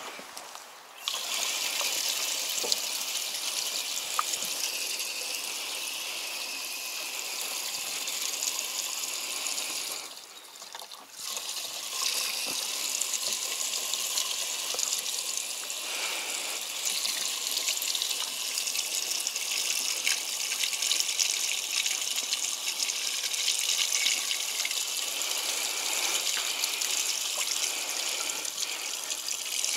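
Diesel fuel pouring from a plastic jerry can through its flexible spout into a Kubota MZ775 tractor's fuel filler, a steady gushing rush. The flow stops for about a second and a half midway, then runs on.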